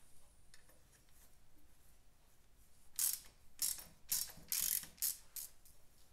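A socket ratchet clicking in a run of about six short bursts, starting about halfway through, as it works loose the mounting nuts of a motorcycle's front carburettor.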